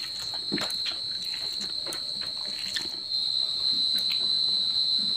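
A cricket trilling on one steady high note, with scattered soft clicks and smacks of eating by hand.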